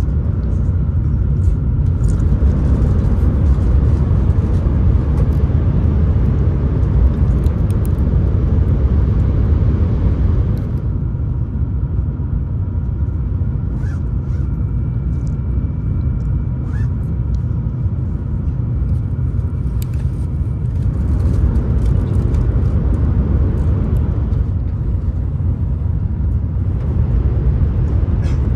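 Shinkansen bullet train running, a steady low rumble heard from inside the passenger car. It drops a little about ten seconds in and rises again about ten seconds later.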